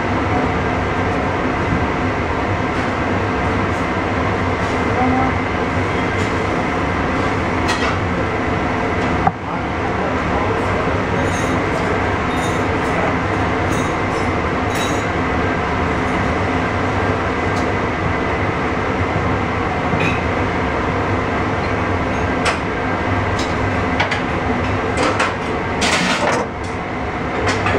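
Steady, loud machine hum and rumble with several fixed tones, the running equipment of a commercial kitchen. A few light clicks and knocks near the end come from the knife and the tuna steaks on a plastic cutting board.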